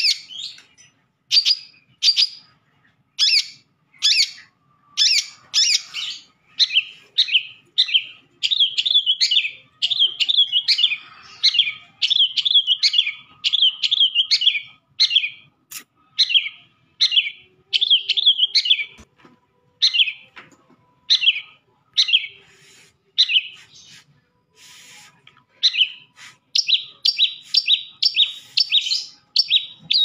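Long-tailed shrike (cendet) singing a varied song of short, sharp notes. The notes are spaced at first, run into dense chattering phrases in the middle, and end in a fast run of clipped notes near the end.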